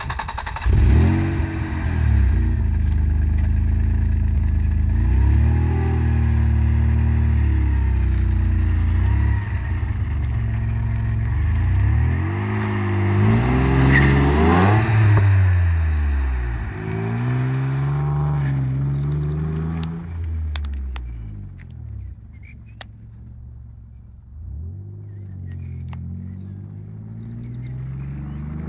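Opel Vectra B estate's 2.5-litre V6 through a dual exhaust, revved and accelerating in rising and falling pulls. It passes close by about halfway through, with a drop in pitch, then fades with the distance and grows louder again near the end.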